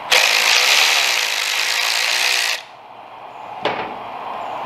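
Milwaukee cordless electric ratchet running for about two and a half seconds, spinning out a screw on a Harley-Davidson primary derby cover, then stopping suddenly. About a second later, a single short knock.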